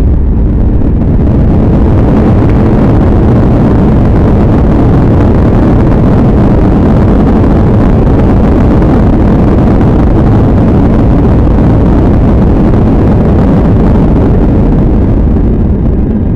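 Loud, steady rushing of a Boeing 737-800's CFM56-7B jet engines and airflow, heard inside the cabin during the landing roll-out on the runway. The noise builds just before the start and eases slightly near the end as the jet slows.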